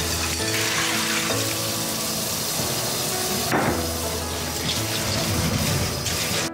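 Cold tap water running in a steady stream onto cooked wheat noodles in a stainless mesh strainer in the sink, splashing as they are rinsed of starch. Soft background music plays underneath.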